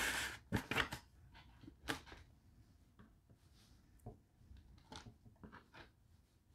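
Crispy fried chicken wings being handled: a scattering of light taps and rustles as wings are lifted out of a paper-lined takeout box and set down on a wooden cutting board. The sounds come a few at a time, most of them in the first second.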